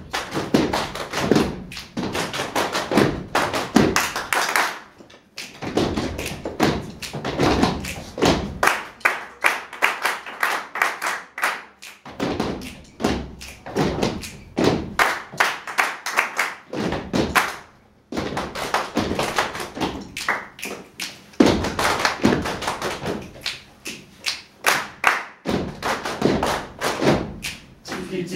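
A group doing body percussion: hand claps mixed with taps and thumps in tight rhythmic patterns. The phrases stop briefly about every six or seven seconds.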